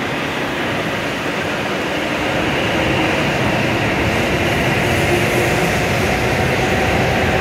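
W7 series Shinkansen train pulling out of the station, its cars rolling past close by with a steady rumble and rush. The sound grows a little louder about three seconds in as the train picks up speed.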